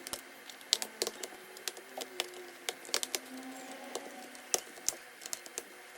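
Irregular small plastic clicks and taps, several a second, from a laptop being taken apart by hand.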